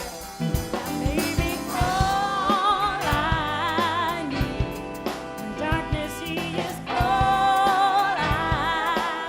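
A band playing a slow soul song, with a singer holding long wavering notes over drums and bass.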